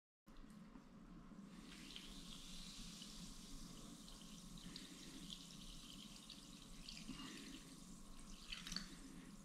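Sparkling water pouring faintly and steadily from a stainless steel bottle into a ceramic bowl, with a brief louder moment near the end.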